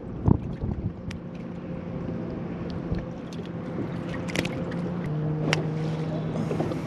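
Boat motor running steadily at low speed, its hum shifting in pitch about five seconds in, with scattered knocks and clicks over it.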